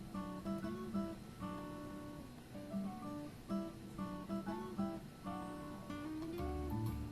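Background music led by acoustic guitar, picked and strummed in a gentle melody, with a bass line coming in near the end.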